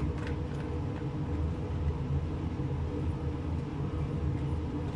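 A steady, low mechanical hum, with a few faint metallic clicks just after the start as a stainless-steel pressure cooker lid is twisted and seated.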